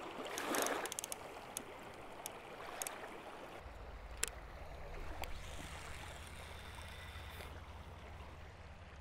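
Small waves lapping on a rocky lake shore, with a brief swish about half a second in and a few faint clicks. A low rumble comes in a few seconds in.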